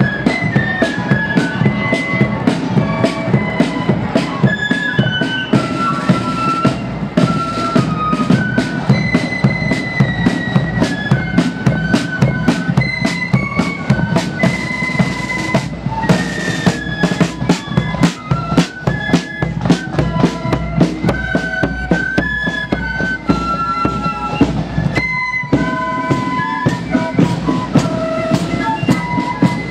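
Marching flute band playing a tune: flutes carry the melody over side drums and a bass drum beating a steady march rhythm.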